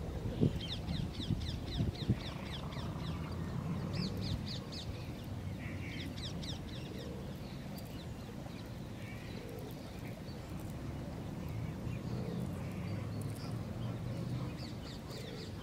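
Wind rumbling on the microphone, with a few bumps in the first two seconds, under several runs of quick high bird chirps that come and go.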